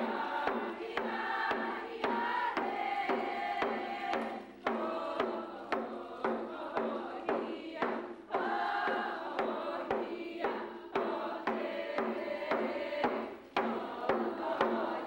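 Athabascan group singing in unison, chanting to the steady beat of hand-held frame drums.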